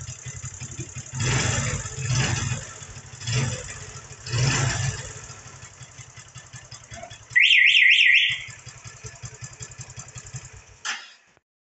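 Motorcycle engine running and revved four times, then an electronic alarm warbles quickly up and down for about a second as the engine sound drops away; a click near the end.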